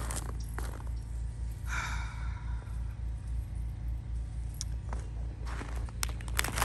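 A steady low engine hum from a neighbour's generator, pulsing slightly. A short breathy gasp comes about two seconds in, and a few clicks and crunches of ice come near the end.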